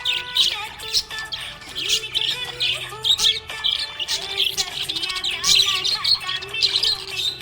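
Budgerigars chirping and warbling in a quick, continuous chatter of short high notes.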